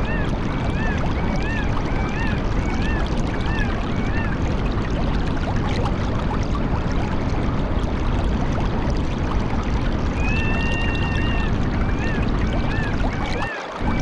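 Steady rushing water, like a stream, with a bird calling over it: a run of short rising-and-falling chirps in the first few seconds, then again about ten seconds in a long held whistle followed by more chirps. The water sound dips briefly near the end.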